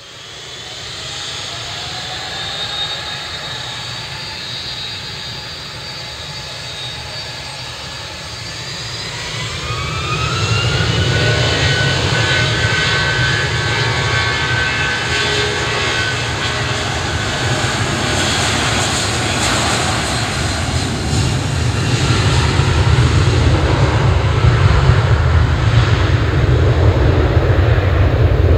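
Boeing 757-200's twin turbofan engines spooling up for takeoff. Steady whining tones glide upward about eight to ten seconds in as thrust comes up, and the sound grows louder, with a heavy low rumble. It carries the buzz-saw sound of the fan blade tips running supersonic at takeoff power, and swells again near the end.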